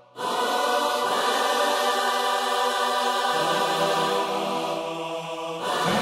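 Background music: a choir singing long held notes in the manner of a chant, the chord changing a couple of times.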